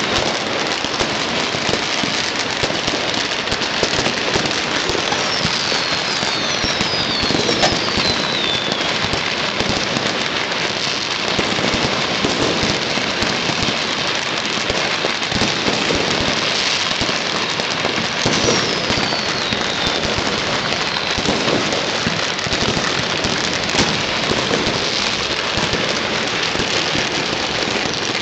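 New Year fireworks and firecrackers going off all over the city at once: a dense, unbroken crackle and popping with scattered louder bangs. A few high whistles falling in pitch are heard now and then.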